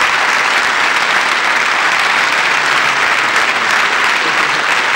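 Large audience applauding steadily, a continuous dense clapping.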